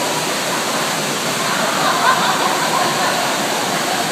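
Steady rush of falling and splashing water from water-park features, echoing in a large indoor pool hall, with faint voices in the background.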